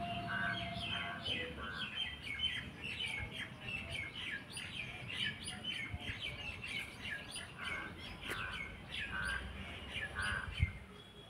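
Birds chirping: a long run of short, quickly repeated falling chirps, with a few lower buzzy calls among them. A single soft thump near the end.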